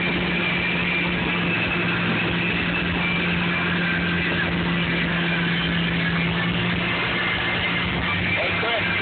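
Motorboat engine running at a steady cruising speed with the rush of wind and churning wake over the microphone; the engine's steady hum drops away near the end.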